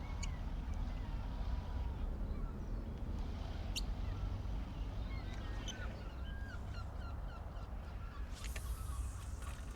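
Birds calling around an estuary: a string of short chirping calls that grows busier in the second half, with a few high thin whistles, over a steady low rumble. A brief hiss comes about eight and a half seconds in.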